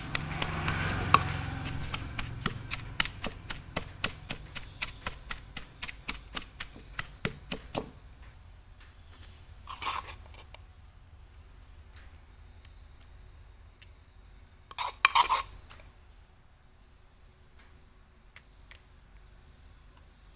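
Wooden pestle pounding lemongrass and chili paste in a wooden mortar: an even run of knocks, roughly two and a half a second, that stops about eight seconds in. Later come two short bursts as a metal spoon scoops the paste.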